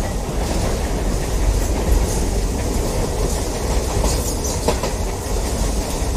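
Subway train running along the track: a steady low rumble.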